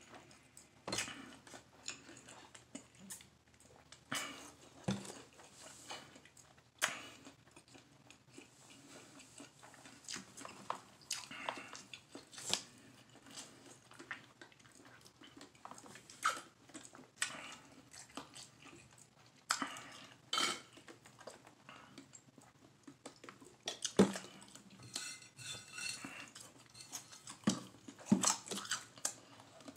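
A person eating: chewing and swallowing mouthfuls of sandwich, with scattered sharp clicks and knocks from handling a plastic drink bottle and taking a drink, the loudest clicks coming near the end.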